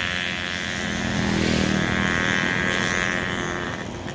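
A large bus passing close by, its engine running steadily, easing off near the end.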